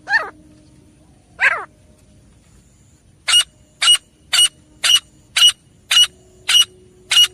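Grey francolin calling: two downward-sliding calls near the start, then a run of about nine short, sharp notes, roughly two a second.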